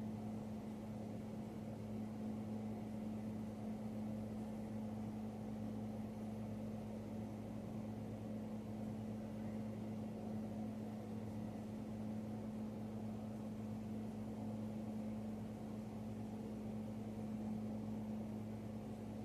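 Steady low machine hum with an even drone, unchanging throughout.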